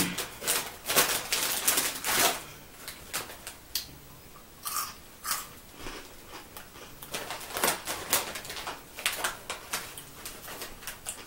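Crinkly foil chip bag of Cheetos rustling and crackling as it is handled and reached into, with crisp crunching of Cheetos among it. The crackles come thickest in the first two seconds, then more sparsely.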